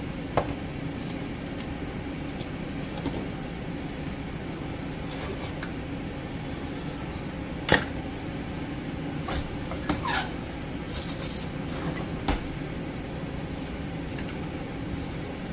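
Glass mason jars and metal tongs clinking and knocking as sterilized jars are set out on a pan, with a sharper clack near the middle as a ladle and tongs are put down. A steady low drone runs underneath.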